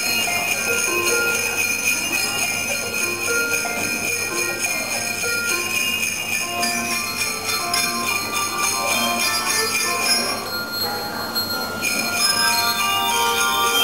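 A handbell choir ringing brass handbells in a piece of music, many sustained bell notes overlapping into melody and chords. The high ringing thins out briefly about ten seconds in, then comes back.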